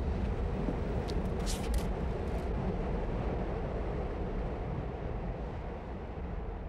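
Steady rumble and rattle of a subway car running on the tracks, heard from inside the car, with a few brief high-pitched hisses between one and two and a half seconds in.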